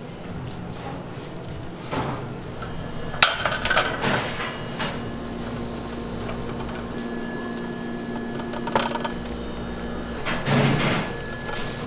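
Metal baking pans knocking and clattering a few times as gloved hands lift dough rolls off a sheet tray and press them into a metal muffin tin, over a steady hum.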